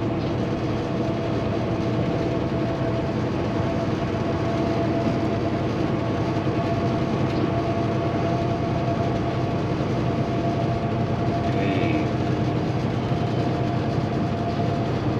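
Steady drone inside a semi-truck cab at highway cruising speed: the Paccar MX13 diesel engine running at an even pitch, mixed with road and tyre noise.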